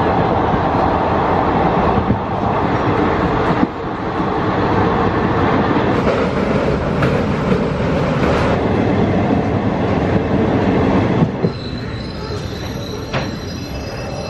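Passenger train running, heard from inside the carriage at an open window: a steady dense rumble and rattle of wheels on track, broken by several abrupt cuts. About eleven seconds in it turns quieter and thin, steady high-pitched tones join it.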